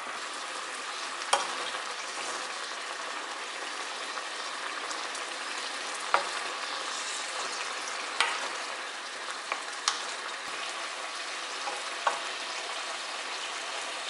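Soy-sauce braising liquid bubbling and sizzling around baby potatoes in a pan as it reduces to a glaze. A wooden spatula stirs them, with about five sharp knocks against the potatoes and pan.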